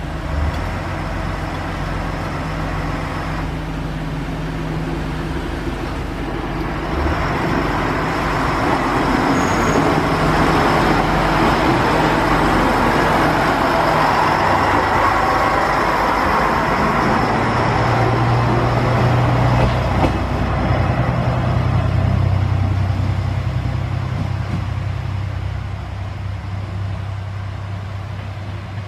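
JR Shikoku 1000 series single diesel railcar pulling away: its diesel engine runs steadily at first, then the sound swells to its loudest as the railcar passes close by, about halfway through. It then settles into a steady low engine drone that slowly fades as the railcar moves off along the switchback track.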